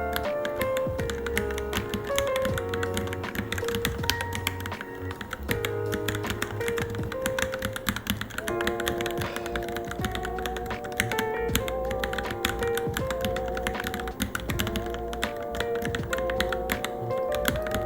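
Rapid, irregular keystrokes typed on a Varmilo Minilo mechanical keyboard, over background music with a simple melody that turns into wavering held notes about halfway through.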